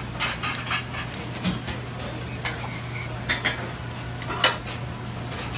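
Metal tongs and a ladle clinking against a pan and ceramic plates as spaghetti is plated, in irregular sharp clinks with the loudest about four and a half seconds in. A steady low hum runs underneath.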